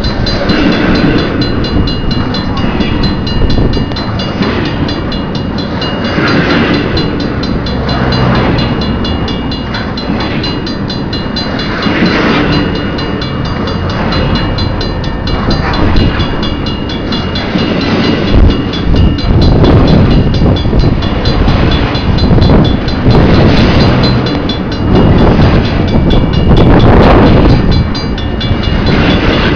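CN train rolling past at a level crossing: a loud, continuous rumble of wheels on rail that swells and fades every second or two as each car goes by. A few steady high tones ring over it.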